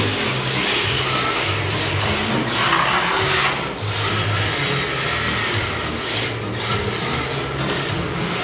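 Radio-controlled drift cars running on an indoor track: electric motors whirring and hard tyres sliding on the smooth floor. Under it is background music with a low, stepping bass line.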